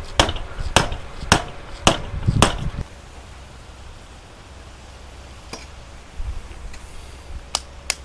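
Mallet blows on a fitting on a dirt-bike handlebar: about five sharp strikes, roughly two a second, stopping about two and a half seconds in. A few light clicks follow later.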